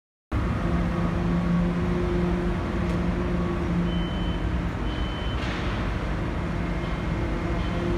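Steady low mechanical rumble with a droning hum, cutting in abruptly from silence just after the start.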